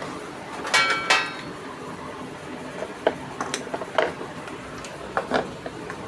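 Small hard objects being handled on a workbench: a ringing metallic clink about a second in, then scattered light clicks and knocks as parts and connectors are picked up and set down.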